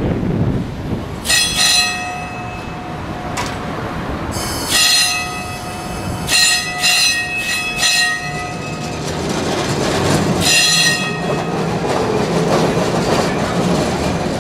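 Milan type 1928 tram rounding a curve: its steel wheels squeal against the rails in four or five high-pitched bursts of a second or two each, over the low rumble of the car rolling along the track.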